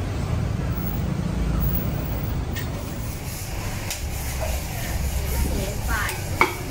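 Street-food stall ambience: a steady low rumble with indistinct voices and a few sharp clicks.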